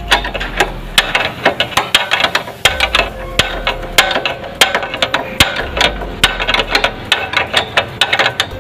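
Socket ratchet wrench clicking in quick, irregular runs as a motorcycle's rear wheel axle nut is tightened.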